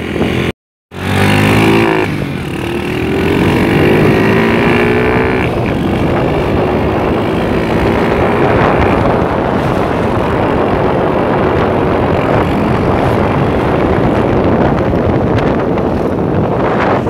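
Honda Grand's small single-cylinder four-stroke engine, running a 24 mm PE carburettor, accelerating on the road: its pitch climbs, drops at a gear change about five seconds in, and climbs again. Wind and road noise then take over at speed. There is a brief cut-out near the start.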